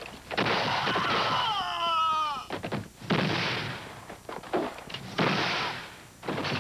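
Three gunshots from long guns, about two to three seconds apart, each with a long echoing tail. Between the first two, a cry falls in pitch.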